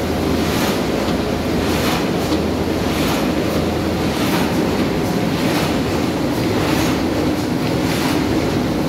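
Automatic flat-bed die-cutting machine running on corrugated board. A steady mechanical hum with a repeating clatter from the machine's cycling.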